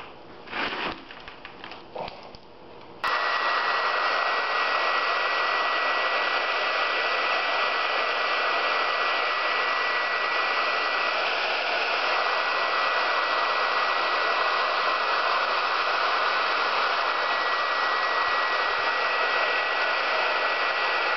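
A few light knocks of handling, then a handheld hair dryer is switched on about three seconds in and runs steadily: a loud rushing blow with a thin steady whine.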